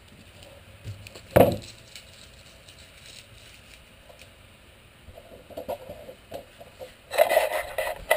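A single sharp knock about a second in, a few quiet taps and scrapes later, then a burst of rubbing and clatter near the end as the camera is picked up and moved by hand.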